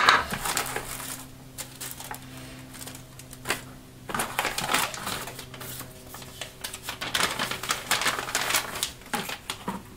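Cardboard box flaps and a plastic bag being handled: a string of clicks, taps and crinkling rustles, busiest in the second half.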